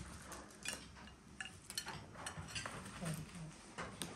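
Cutlery and dishes clinking during a meal at the table: a scattered string of short taps and clicks as food is picked from plates and a basket.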